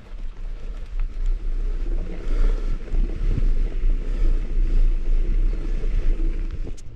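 Wind buffeting the microphone on a moving mountain bike, a deep rumbling rush mixed with rolling trail noise, growing louder about two seconds in, with a few short clicks.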